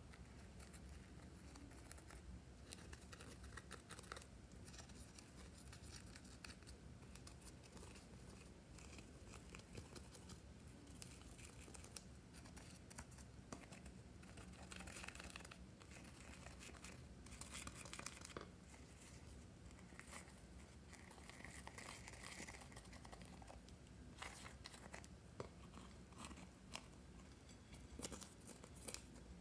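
Faint, scratchy scraping and crumbling with small crackles: a plastic spatula digging pressed glitter eyeshadow out of the pans of a palette.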